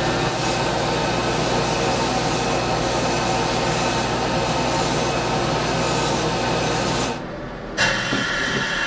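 Belt grinder running while glued-together laminated wood razor scales are pressed against the moving sanding belt, a steady grinding rasp over the motor's hum. It cuts off about seven seconds in, and a single knock follows near the end.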